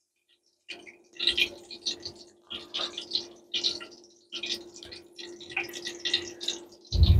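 Lentil and moringa-leaf fritter batter dropped by hand into hot oil in a frying pan, sizzling and crackling in a fresh surge each time a portion goes in, about six or seven times, over a steady low hum. Music comes in at the very end.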